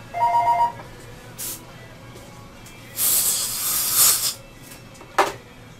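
Dental air syringe blowing air into the mouth: a strong hiss lasting about a second and a half midway, with short puffs before and after it. At the very start a two-tone electronic ring sounds briefly.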